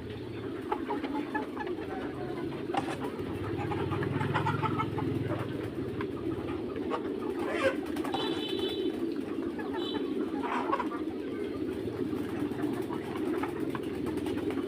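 Flock of young Mía chickens giving low, continuous overlapping murmuring calls, with scattered higher chirps and a few brief high peeps.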